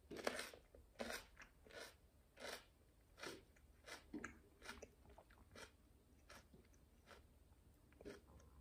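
A person chewing a raw green hot pepper: about a dozen crunches, roughly one every two-thirds of a second, fading after about six seconds, with one last crunch near the end.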